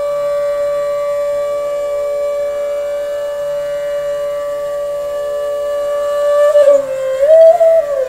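D-base bansuri (Indian bamboo flute) holding one long steady note in Raag Megh Malhar. About six and a half seconds in, it slides down and back up in ornamented glides and grows louder.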